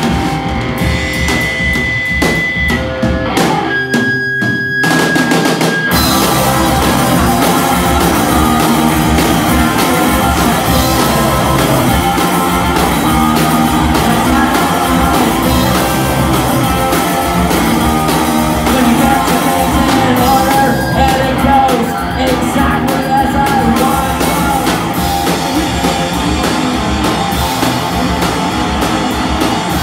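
Live rock band playing: electric guitar, bass guitar and drum kit, with a sung lead vocal. The first few seconds are sparser, with held high guitar notes and the bass and drums dropping out, and the full band comes back in about six seconds in.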